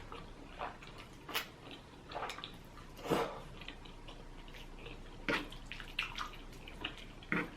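Close-miked wet mouth sounds of someone eating: scattered lip smacks and clicks of chewing, about one a second.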